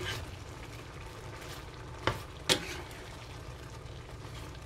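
Tteokbokki, rice cakes in red sauce, simmering in a frying pan while it is stirred with a plastic ladle. Two sharp knocks of the ladle against the pan, about two seconds in and again half a second later.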